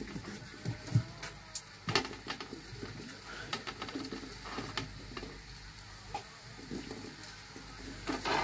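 Uppu seedai (raw rice-flour balls) dropping into hot oil in a kadai and starting to sizzle as they deep-fry, with scattered clicks and knocks, the sharpest about one and two seconds in.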